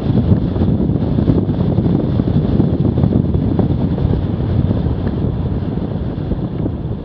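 Wind buffeting the microphone of a camera on a bicycle descending a road at speed: a loud, steady, low rushing noise.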